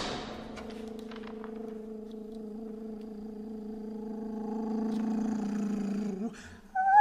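Contemporary chamber music: one long, steady low note with a fast grainy pulse in it, swelling a little before it breaks off about six seconds in. After a brief gap a swooping, gliding high sound begins right at the end.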